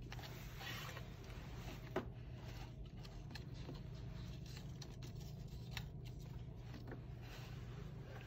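Faint handling noises as plastic plant pots are moved and set down on a shelf: light scrapes and rubs, with a sharp click about two seconds in, over a steady low hum.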